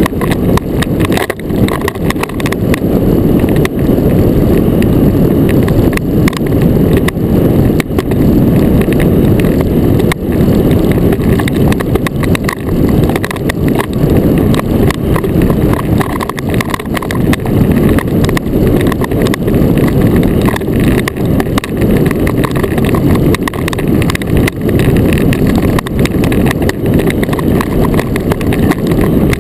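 Iceboat runners sliding fast over clear lake ice, heard from on board: a loud, continuous rumble with constant fine chatter.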